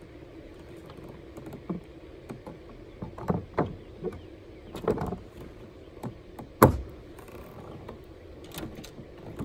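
A series of irregular knocks and clunks on a plastic sit-on kayak as its gear is handled aboard, the loudest a sharp knock about two-thirds of the way through, over a faint steady hum.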